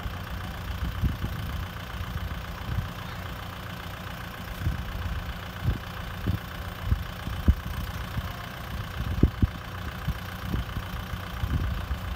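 Kubota M6040SU tractor's diesel engine running steadily, with irregular low thumps scattered through it.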